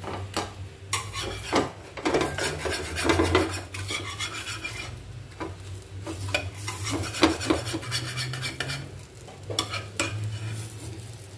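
Flat metal spatula scraping and scratching in irregular strokes across a tawa as a stuck ragi dosa is pried up and breaks apart, with sizzling underneath.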